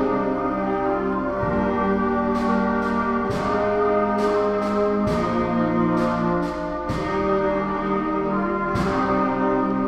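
A school band of saxophones, clarinets and trumpets playing slow, sustained chords, with the drum kit adding a sharp stroke every second or so.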